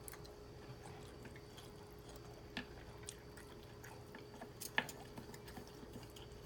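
Faint, close-miked chewing of a mouthful of beef and broccoli: soft wet mouth sounds with a few sharp clicks, the loudest a little under five seconds in, over a faint steady hum.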